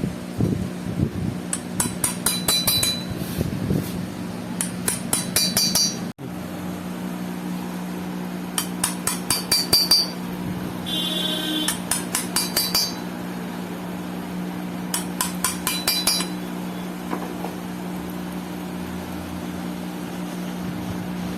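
Quick runs of light, ringing metal-on-metal taps, repeated about five times, over a steady machine hum.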